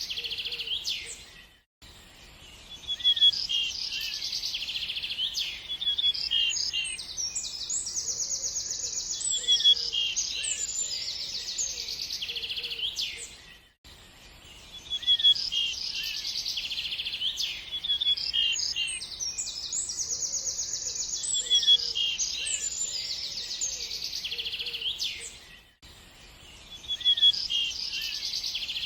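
Several birds chirping and trilling in a busy chorus of short high calls and fast trills. The same stretch of about twelve seconds repeats, with a brief dip in level each time the recording loops.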